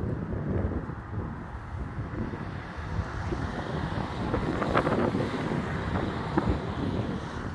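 Strong storm wind buffeting the microphone: a steady low rush of noise, with a few light clicks about halfway through.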